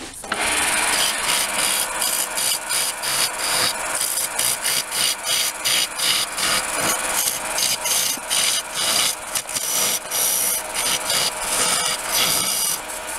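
Wood lathe cutting: a homemade cutter ground from a drill bit scrapes into the face of a spinning wooden blank, a steady rasping broken by quick, irregular pulses. The cutter's right edge is working here, and it cuts noticeably worse than the left.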